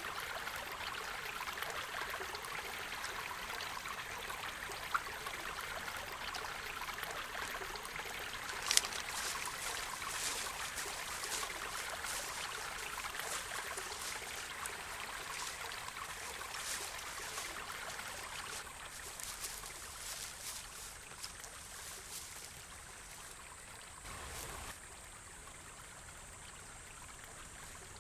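Small stream trickling over rocks, a steady watery hiss that grows fainter after about 18 seconds, with scattered faint clicks.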